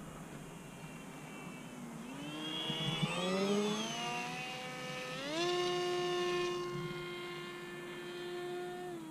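Electric motor and pusher propeller of a Volantex Ranger 757-4 RC plane whining in flight, sliding up and down in pitch as the plane passes low and close. About five seconds in the whine rises sharply in pitch, as with the throttle opened, and then holds steady.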